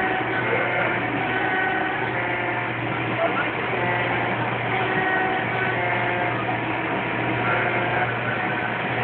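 Coin-operated dump-truck kiddie ride running: a steady low motor hum with short electronic tones at changing pitches over it, like the ride's engine sound effects and tune.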